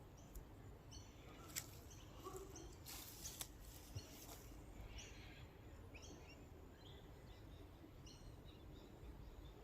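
Faint, short high chirps of small birds calling again and again at irregular intervals over a low steady outdoor rumble, with a few sharp clicks in the first half.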